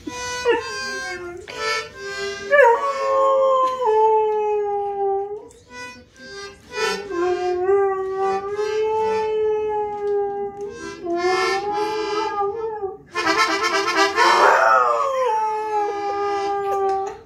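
Siberian husky howling along to a toy accordion. The accordion holds long reedy notes and, about two thirds of the way through, a full chord, while the dog's howls slide up and down in pitch over them.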